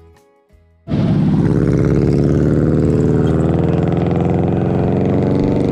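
Quiet background music fades out, then about a second in a motorcycle engine cuts in loud and close, running steadily, with its pitch rising slightly near the end.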